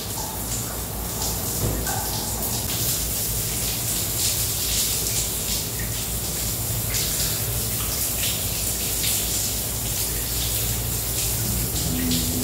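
Steady rushing of running water, with a low hum underneath.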